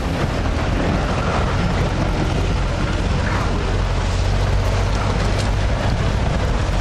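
Loud, steady rush of floodwater, with a heavy low rumble beneath it.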